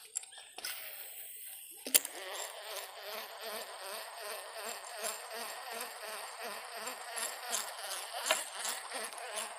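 Fishing reel being cranked to retrieve a lure. A sharp click about two seconds in is followed by a steady buzz with a faint pulse about three times a second.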